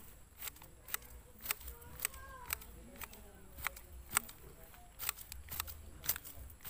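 Long-handled grass shears snipping through grass stems, a sharp click with each cut, roughly two a second at an uneven pace.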